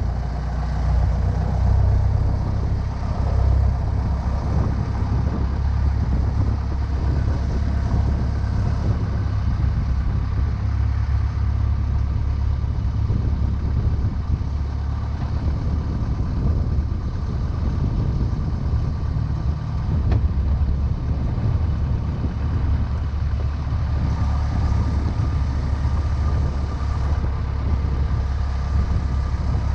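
Small powerboat's engine running steadily, a low drone with little change.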